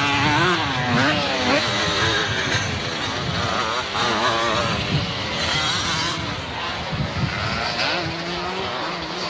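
Several motocross dirt bikes racing past, their engines revving up and down in pitch as the riders work the throttle through a corner.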